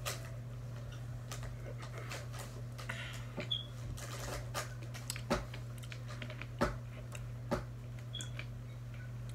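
Room tone with a steady low hum and a few scattered light clicks and taps, the clearest coming about a second apart in the second half.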